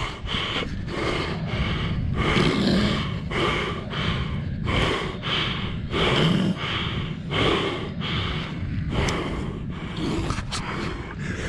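Rapid, heavy panting breaths, about two a second, close to the microphone, over a steady low rumble.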